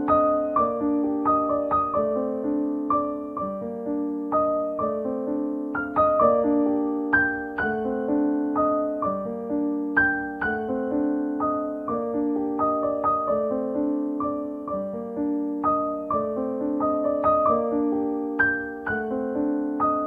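Background piano music: a gentle instrumental piece of struck notes in repeating broken-chord patterns.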